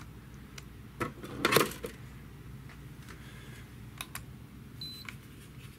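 Handling noise from a cordless drill being moved and set down: a few sharp clicks and knocks, with one louder rustling clatter about one and a half seconds in. A short high beep comes near the end, from an infrared thermometer.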